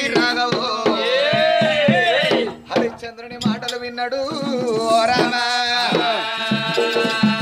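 Oggu Katha folk ballad singing: a voice holds long, wavering, ornamented sung lines, accompanied by hand-struck barrel drum strokes. The singing breaks off briefly about two and a half seconds in, and the drum keeps up a steady beat near the end.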